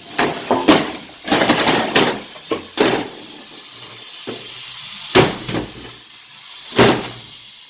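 Metal clanking and knocking from 700R4 transmission parts being handled and pulled apart: a quick cluster of knocks in the first few seconds, then two single sharp knocks later on.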